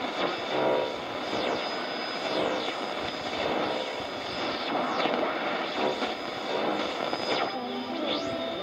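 Realistic DX-60 shortwave receiver tuning between stations: a steady rush of static with whistles that sweep downward in pitch again and again, and faint broken snatches of signal underneath.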